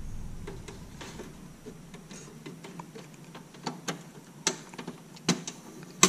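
Light plastic clicks and knocks as the black plastic memory air-channel bracket of a Dell Precision T7910 workstation is fitted back onto the metal fan frame, with a few sharper clicks in the second half.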